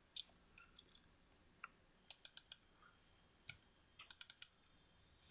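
Faint, sharp clicking of a computer mouse and keyboard. A few single clicks come first, then two quick runs of about four clicks each, roughly two seconds apart.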